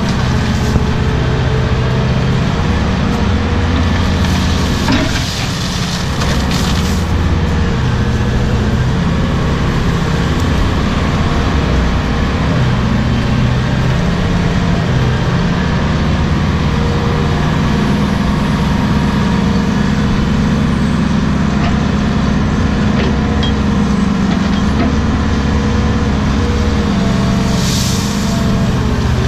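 Cat 225DLC excavator's diesel engine running under load, its note rising and falling as the hydraulics work the boom and bucket digging out the ditch.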